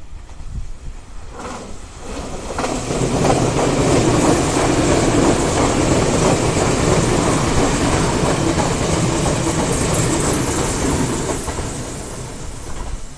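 Silver Nankai commuter electric train passing close by: the steady rumble and clatter of its wheels on the rails. The noise builds about two seconds in and eases off near the end.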